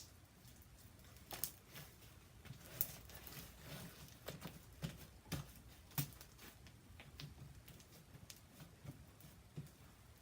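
Slime being squeezed and stretched by hand, giving soft, irregular sticky clicks and small pops.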